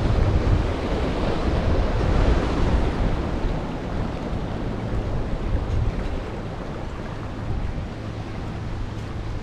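Wind buffeting the microphone over the wash of small lake waves lapping against the shore, a steady noise with a deep rumble that eases after the first few seconds.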